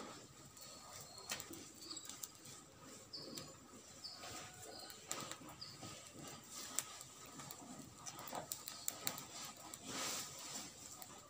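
Short high bird chirps recurring every second or so, over soft rustling and scattered small clicks as feathers are plucked by hand from a slaughtered chicken.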